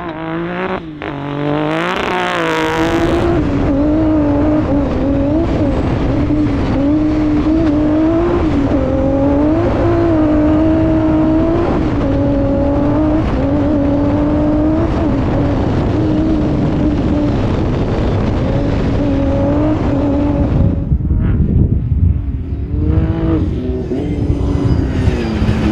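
HRC twin-turbo V6 of a Honda Ridgeline trophy truck running hard at racing speed over a heavy low rumble. The revs rise in the first few seconds, hold high with small dips, fall away about 21 seconds in, then climb again near the end.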